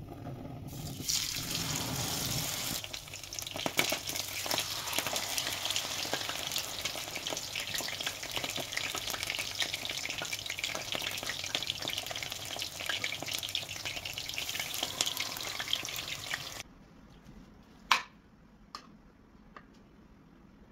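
Food frying in hot oil, a dense sizzle full of small crackles, which stops abruptly about 16 seconds in. A sharp click and a few light ticks follow.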